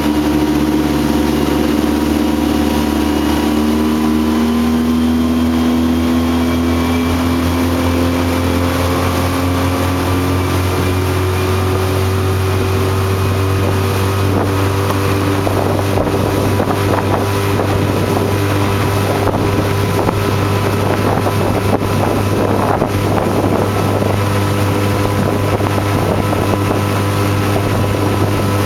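Motorboat engine running under way, its pitch climbing gradually over the first ten seconds or so as the boat speeds up, then holding steady. From about halfway through, rough wind and water noise rides over the engine.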